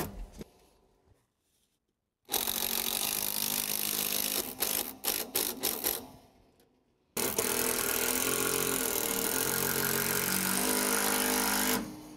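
Cordless drill-driver driving screws into wood, in two runs of the motor. The first lasts about four seconds and ends in a few sharp clicks; the second, a little longer, runs steadily, its pitch shifting a few times.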